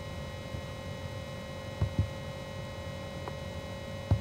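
Steady electrical hum with several thin whining tones, and two double-clicks, each a pair of short low clicks about a fifth of a second apart, about two seconds in and again near the end: a zip file being double-clicked open on a MacBook.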